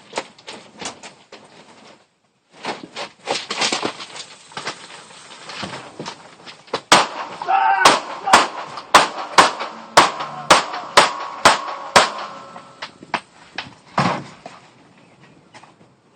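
Rapid gunfire: a string of about a dozen sharp shots, roughly three a second, about seven seconds in. Scattered knocks and clatter come before and after the shots.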